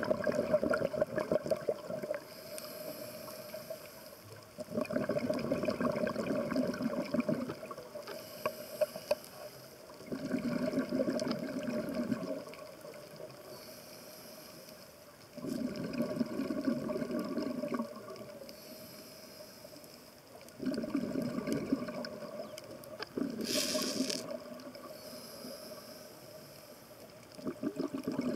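Scuba diver breathing through a regulator underwater. About every five seconds comes a loud burst of exhaled bubbles, and between bursts the regulator gives a quieter whistling hiss on each inhale, six breaths in all. A short sharp hiss comes about three quarters of the way through.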